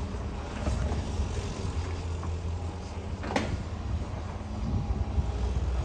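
Cat excavator's diesel engine running steadily, with scattered clunks of concrete rubble and one sharp knock about three and a half seconds in.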